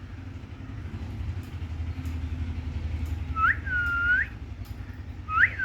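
Cockatiel whistling twice, each call a quick rising note followed by a longer dipping whistle, over a steady low hum.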